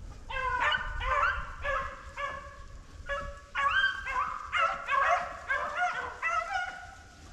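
Pack of beagles baying in several overlapping voices while running a swamp rabbit's track. The chorus starts a moment in and tails off near the end.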